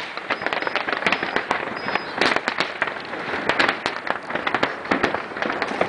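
Fireworks display: a dense, continuous run of overlapping bangs and crackles, many per second.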